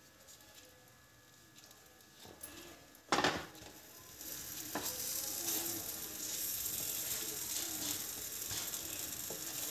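Butter frying under bread slices in a frying pan on a low gas flame: a wooden spatula knocks once against the pan about three seconds in, then a steady sizzle builds, with light scrapes as the spatula presses and moves the bread.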